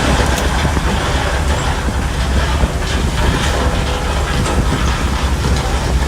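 Shantui bulldozer's diesel engine running steadily with a deep drone, with scattered clanks from the steel tracks.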